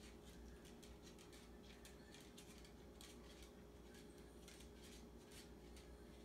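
A small dog eating dry kibble from a stainless steel bowl: faint, irregular crunching and clicking, several times a second.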